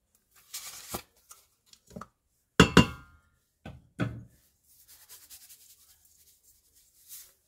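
Seasoning shaken from a plastic shaker over diced potatoes and ham in a stainless steel Instant Pot inner pot. This is followed by a few knocks and one ringing metal clink about two and a half seconds in, then soft rustling.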